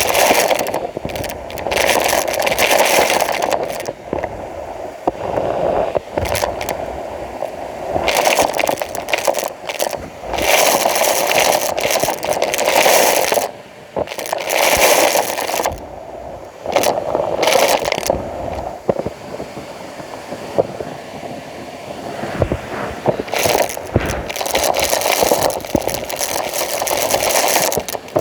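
Numatic Hetty vacuum cleaner being worked, with repeated scraping, rustling strokes about one to two seconds long and short pauses between them.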